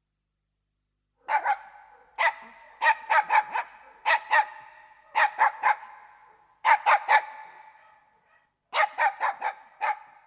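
Dog barking in quick runs of two to five sharp barks, with short pauses between runs and an echo trailing after each. It starts a little over a second in.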